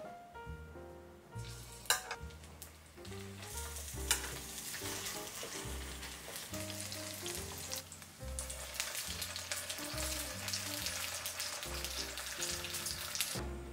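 Buckwheat dumplings frying in hot oil in a nonstick pan, sizzling steadily and growing louder after the first few seconds. There is one sharp click about two seconds in. Background music with plucked notes plays underneath.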